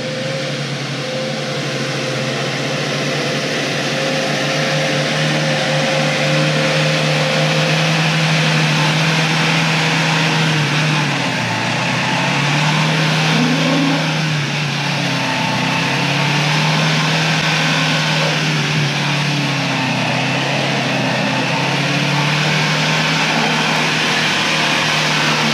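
Four-wheel-drive pickup's engine working under load as it climbs a muddy slope. The engine holds a steady pitch that dips and rises again several times in the middle, over a steady rushing hiss.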